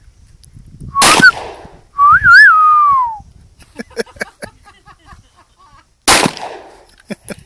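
Two .45 ACP pistol shots from a Glock 30, about five seconds apart. Shortly after the first shot a person whistles, a wavering note that slides down, and a few light clicks follow.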